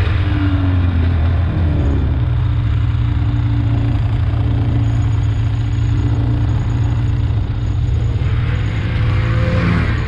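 Snowmobile engine running steadily at low speed while riding. It eases off slightly at first, then holds an even tone, with a short hiss about eight seconds in.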